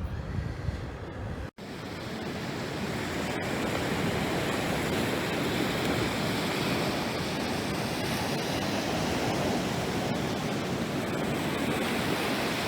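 Ocean surf washing steadily, an even rushing hiss with no single wave standing out. In the first second and a half, wind rumbles on the microphone before a brief cutout.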